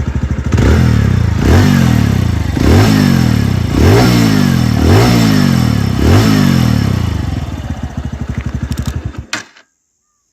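TVS Radeon BS6 motorcycle's 110 cc single-cylinder engine idling, then blipped about five times in a row, about once a second, before settling and cutting off near the end. It is run to show an engine noise that the new owner says should not be there.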